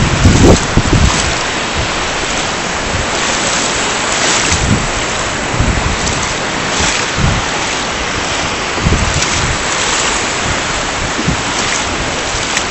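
Shallow surf washing in at the water's edge with a steady hiss. Gusts of wind buffet the microphone in irregular rumbles, the strongest about half a second in.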